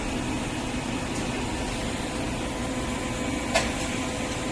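TIG (argon) welding arc on a 6-inch carbon steel pipe during the fill pass: a steady hiss with a faint hum, and a single click about three and a half seconds in.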